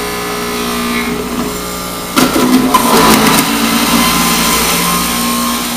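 Jack LaLanne electric centrifugal juicer motor running steadily, grinding vegetables pressed down its feed chute with the plunger. It gets louder and rougher about two seconds in as more produce meets the spinning cutter.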